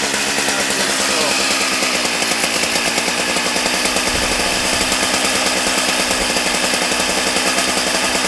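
Husqvarna 181 SE two-stroke chainsaw running steadily at a high, even pitch, its carburettor freshly adjusted.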